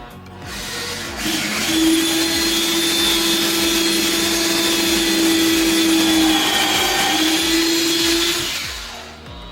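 An electric motor, from a vacuum or power tool, spins up, runs steadily with a strong hum and a loud rushing noise, and winds down near the end.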